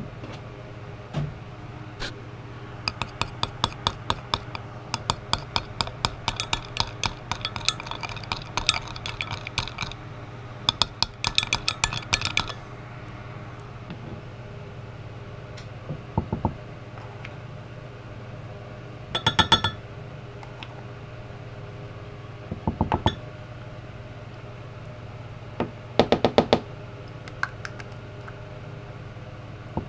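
Light clinks on a glass measuring cup as plastisol is mixed for bait pouring, coming in quick runs of several a second for about ten seconds, then a few short rattling bursts as glitter is shaken in.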